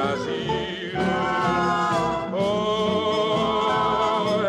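A recorded song playing: a singer holds two long notes with vibrato over instrumental backing, the second starting a little past halfway.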